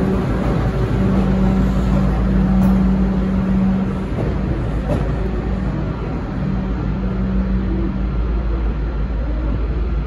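Locomotive-hauled V/Line passenger train pulling away, its carriages rumbling over the rails with a steady low hum that drops out for a couple of seconds around the middle.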